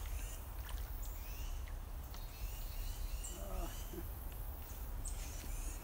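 Short bird chirps repeating about once a second over a steady low rumble, with a brief low murmur of a man's voice about three and a half seconds in.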